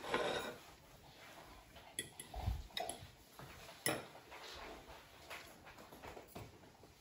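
Faint, scattered clicks and light knocks of household objects, with a soft low thump about two and a half seconds in.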